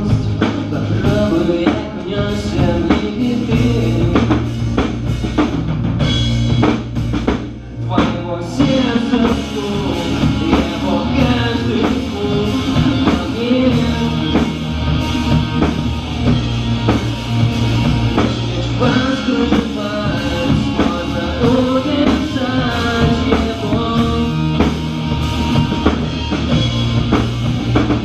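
Rock band playing an instrumental passage of the song: drum kit, bass and a melodic lead line over them, with a brief break a little before the middle.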